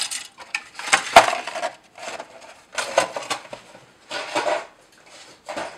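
Plastic model-kit sprues and a cardboard kit box being handled and put away: a run of short clattering and rustling bursts, with a sharp click about a second in.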